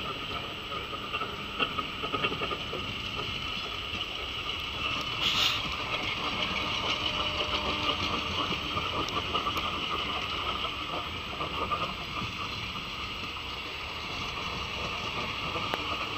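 ER9 electric multiple unit rolling past at close range: wheels clattering irregularly over the rails, with a steady high whine over the rumble.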